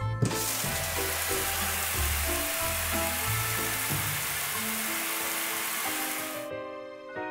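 Cartoon water-spray sound effect: a steady hiss of water showering down to rinse off foam, which stops about six and a half seconds in, over soft background music.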